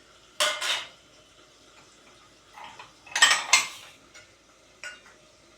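Dishes and utensils clinking as they are handled: a double clink about half a second in, a louder clatter of several strikes about three seconds in, and a light clink near the end.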